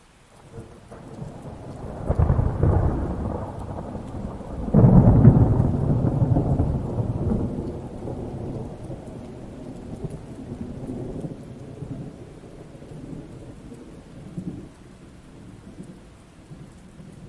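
Thunder with rain: a rumble builds about a second in, then a louder, sudden clap about five seconds in rolls away over several seconds, leaving lighter rumbles and steady rain.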